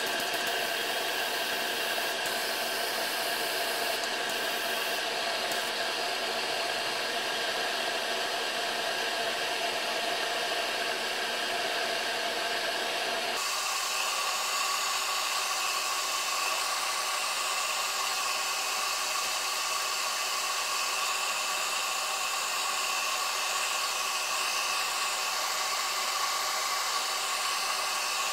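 Wood lathe running steadily with a constant whir as it spins a turned pepper mill piece. The pitch of the whir changes abruptly about halfway through.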